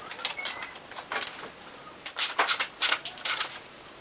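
Irregular sharp clicks and light metallic knocks, about eight in all, as metal parts and tools are handled at a Puch Maxi moped engine.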